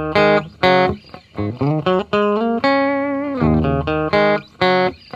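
Intro music: a plucked guitar melody of short and held notes, some of them bending in pitch.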